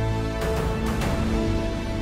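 Background music: held chords with a light, regular beat.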